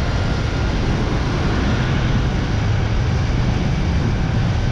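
Wind buffeting a GoPro's microphone as the rider speeds down a zipline: a steady loud rush, heaviest in the low end, with a faint steady whine above it.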